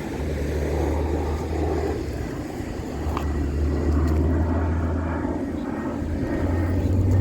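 A low, steady engine drone with a rushing noise over it, its pitch stepping up slightly near the end.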